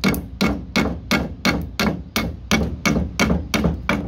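Claw hammer striking a nail head in quick, steady blows, about three a second, driving a straightened nail down into a wooden board.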